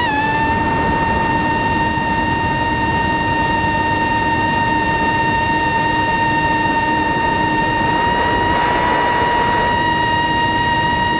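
Quadcopter drone's propellers and motors whining steadily at a high pitch over a hiss of rushing air, heard from the drone's own onboard camera. The pitch dips slightly at the start, and a stronger rush of air comes through for about a second around eight seconds in.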